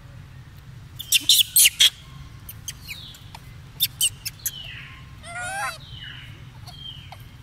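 Infant macaques giving short, high, falling squeaks, with one wavering squeal about five seconds in. A quick run of loud, sharp clicks comes about a second in, with a few more near the middle.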